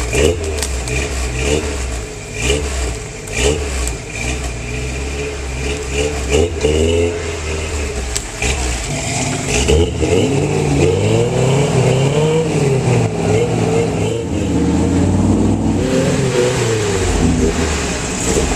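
Off-road 4x4 truck engine revving repeatedly under load, its pitch rising and falling over and over, with the revving swings getting stronger about halfway through.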